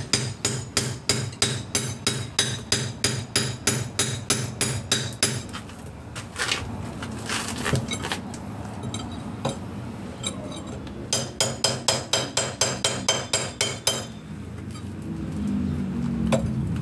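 Hammer striking a steel chisel against a concrete block, quick even blows about three a second with a metallic clink, in two runs with a pause of several seconds between them.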